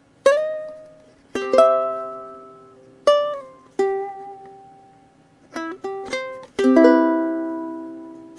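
Ukulele played by itself: a slow phrase of plucked notes and strummed chords, each sharp at the start and ringing out to fade, with a quicker run of notes near the end closing on a chord that rings on.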